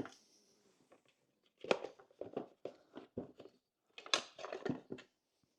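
Hands working a chainsaw's plastic housing and wiring: two bursts of short clicks, scrapes and rattles as the kill-switch wire is fed down the side of the case.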